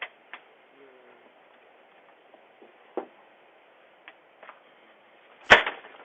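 Scattered light clicks and taps, then one much louder sharp knock about five and a half seconds in, over a faint steady hiss, heard through a doorbell camera's microphone.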